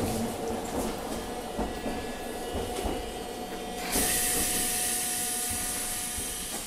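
Hiroshima Electric Railway 800-series tram heard from on board, running quieter with a steady whine from its armature-chopper control. About four seconds in, a loud hiss of compressed air starts and runs on.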